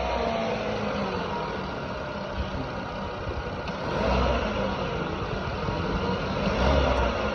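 Turbocharged car engine running just after a start, revved up twice, about halfway through and near the end. The revving is a test for a whistle from the exhaust manifold joint, which a new manifold gasket has not cured.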